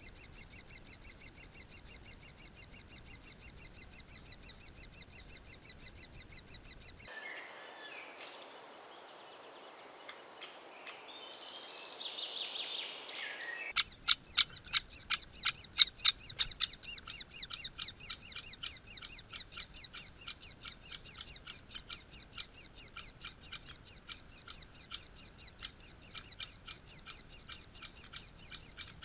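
Great spotted woodpecker nestlings begging from the nest hole in a continuous, evenly repeating chatter of about three calls a second, the sign of young being fed. About a third of the way in the chatter gives way to a quieter stretch of scattered chirps, then resumes louder.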